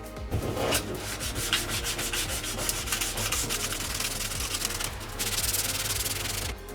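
Sanding: a steady abrasive rasping rub made of quick strokes. It grows louder for about the last second, then stops abruptly.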